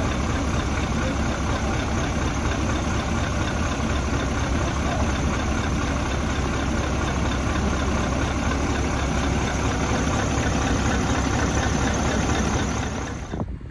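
Heavy truck diesel engine idling steadily with a deep rumble, cutting off abruptly near the end.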